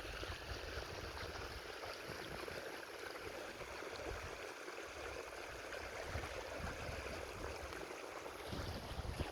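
Creek water flowing, a steady even rush with no break.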